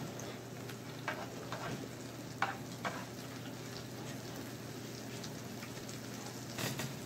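Loaded baked potato salad sizzling with a steady faint crackle on a warming plate set low, with a few soft clicks of a spoon in the food.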